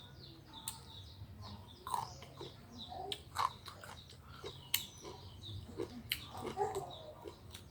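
People biting and chewing crunchy, sour unripe Keo mango, with sharp crunches at irregular moments. Faint short bird chirps sound in the background.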